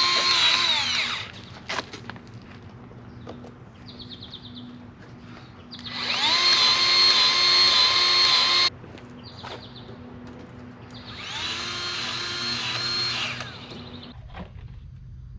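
Power drill run in short bursts: it winds down about a second in, then spins up twice more for two to three seconds each, holding a steady whine. The second run cuts off sharply.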